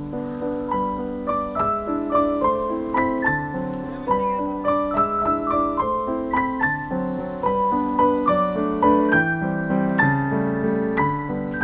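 Background piano music: a steady flowing melody of single notes over soft chords, several notes a second.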